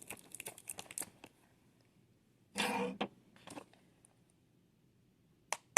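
Small items being handled and packed into a handbag: soft clicks and light rustling during the first second, a short hum of a voice about two and a half seconds in, then a few sharp clicks near the end.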